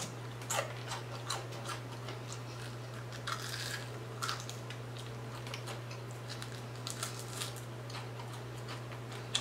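Close-miked chewing of crispy fried seafood: scattered crunches and wet mouth clicks, in small clusters, over a steady low hum.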